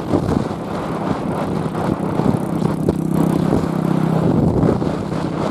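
Wind rushing over the microphone of a moving motorcycle, with the engine running underneath. A steady engine drone stands out for a couple of seconds in the middle.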